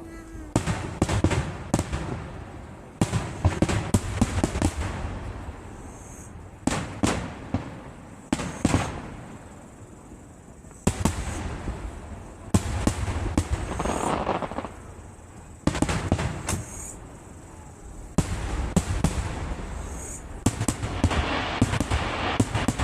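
Aerial fireworks show: shells bursting in quick volleys, sharp bangs followed by rumbling and crackle, coming in clusters every two or three seconds, with a few short high whistles.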